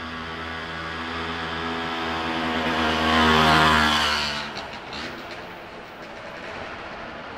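Electric train passing close by: a steady motor hum of several even tones that swells to its loudest about three and a half seconds in, then cuts off abruptly about a second later, leaving a low rumble.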